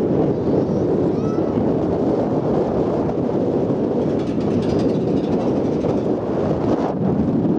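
Heavy wind buffeting on the microphone: a loud, steady, low rumbling noise.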